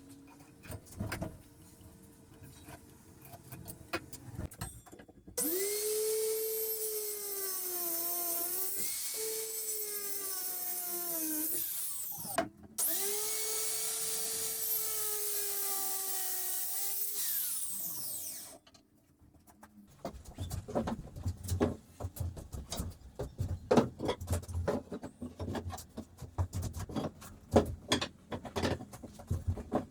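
A high-speed power tool cutting wood, run twice for several seconds each, its whine dipping in pitch as it bites into the wood and recovering. About two seconds after it stops, a run of irregular knocks and taps follows, like wood being handled and tapped.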